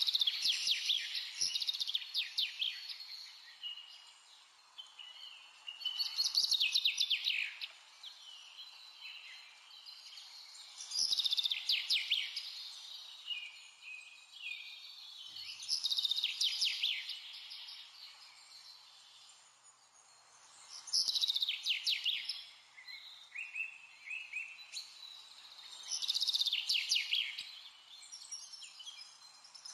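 A songbird singing the same short, rapid trilling phrase over and over, about every five seconds, over a steady faint hiss.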